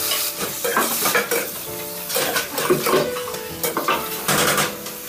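A metal spoon clinking and scraping against an aluminium cooking pot and a plate as pasta is tipped in and stirred, in an irregular run of clatters.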